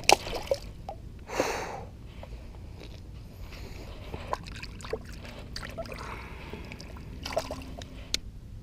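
Scattered clicks and knocks of handling, with a short splash of water about a second and a half in and another short rush near the end.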